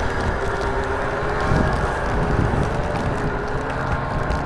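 Snowmobile engine running steadily, a low even rumble with a faint held tone.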